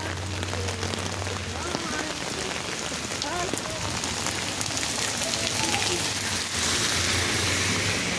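Steady rain falling on wet pavement and the street, a continuous hiss that grows louder and brighter about six and a half seconds in.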